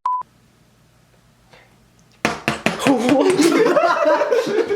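A short steady censor bleep tone, then about two seconds of quiet with a faint low hum, then loud voices from just past two seconds in for the rest.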